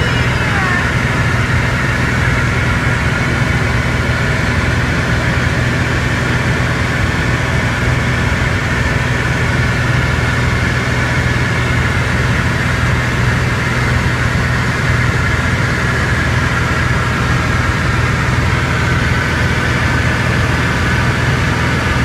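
Small aircraft's engine and propeller droning steadily in flight, heard from inside the cockpit, unchanging throughout.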